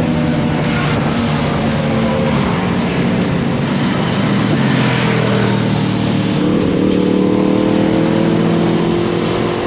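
Honda CB400X motorcycle's parallel-twin engine running under way, with wind rushing past the microphone. The engine note holds steady, drops about halfway through, then climbs slowly near the end.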